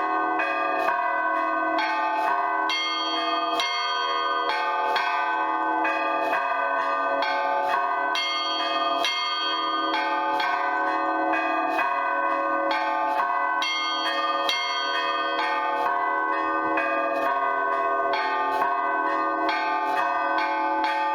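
Orthodox church bell ringing (zvon) on a set of eight old bells from the Lavrov, Olovyanishnikov and Shuvalov foundries, many of them damaged: a main bell, four middle bells and three small bells. The strikes come thick and fast in a repeating pattern, with the peal ringing on continuously.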